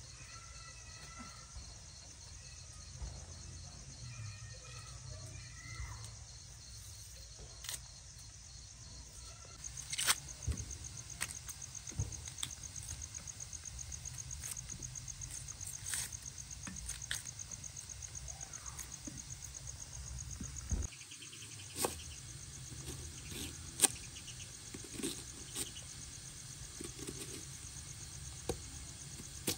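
Insects trilling steadily in the background, with a few short bird-like chirps in the first six seconds. From about ten seconds in there are scattered sharp clicks and taps of a knife peeling and slicing an onion on a wooden cutting board.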